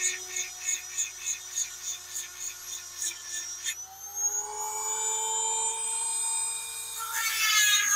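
Small handheld electric chainsaw-chain sharpener, a rotary grinder, whining at high speed as its stone grinds the chain's cutters, with a rhythmic pulsing about two or three times a second. About halfway through the pulsing stops and the whine rises in pitch as the tool runs freely off the chain. Near the end the pitch drops back and the grinding pulses return.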